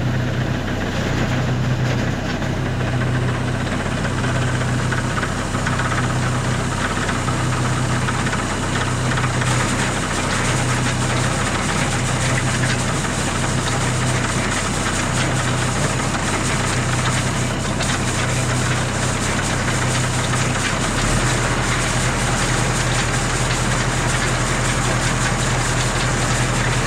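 Tractor engine running steadily with the blueberry harvester heads mounted, the machine working after setup. A low note pulses evenly about every second and a half, and the low engine note shifts about three quarters of the way through.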